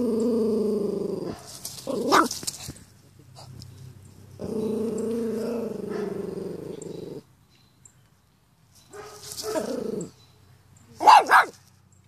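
A Pomeranian growls in two long, low stretches, with short sharp barks between them. Two quick barks near the end are the loudest.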